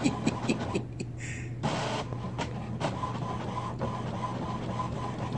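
Printer printing, its print head shuttling back and forth with a steady whir and rapid clicks, with a short pause about a second in.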